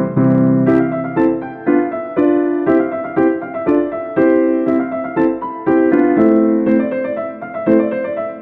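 Background music played on piano or electric keyboard: a steady melody of chords and notes struck about twice a second.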